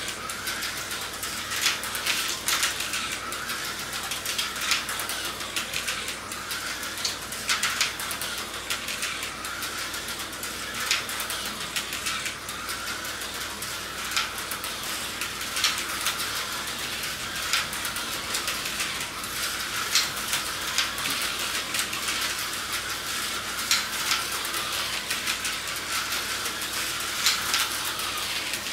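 Tyco HO slot cars running flat out around a plastic track: a steady high motor whine with scattered clicks and rattles.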